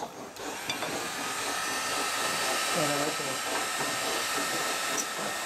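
Hot-air heat gun switching on about a third of a second in and then blowing steadily: a rush of air with a thin steady whine, used to heat a thin wooden strip for bending.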